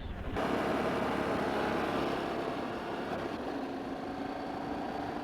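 Adventure motorcycle riding at a steady pace: an even rush of wind and road noise with a faint steady engine hum underneath.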